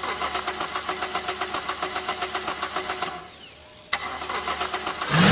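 Car engine being cranked by its starter, a fast even chugging that stops about three seconds in, then a second crank that catches near the end and rises into a louder roar as the engine starts and revs.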